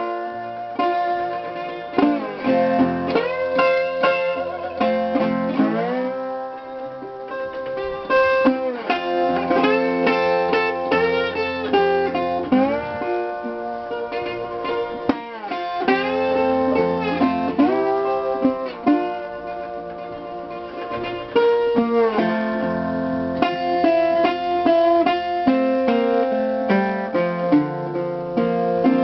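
Dobro resonator guitar played with a slide in an instrumental blues solo, notes gliding up and down between held, ringing chords.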